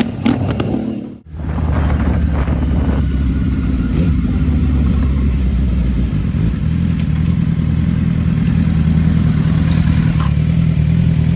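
Royal Enfield Shotgun 650 motorcycle's parallel-twin engine running steadily under way, a deep, even exhaust note likened to a V8. It starts after a brief drop-out about a second in.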